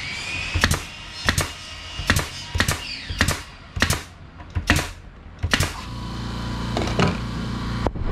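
Pneumatic nail gun firing about nine times in a row, a sharp shot every half second to a second, driving nails into cedar fence-board planter legs. About six seconds in, an air compressor motor starts and runs with a steady hum.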